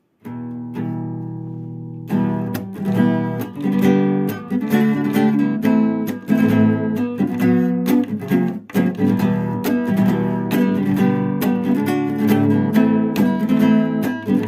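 Acoustic guitar played without singing: a couple of chords left ringing, then steady rhythmic strumming from about two seconds in.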